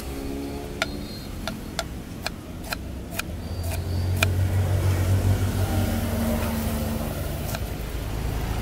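Kitchen knife knocking sharply on a wooden chopping board as it slices through an onion, about eight strokes roughly two a second. About four seconds in, a motor vehicle's engine drone swells and becomes the loudest sound, then fades.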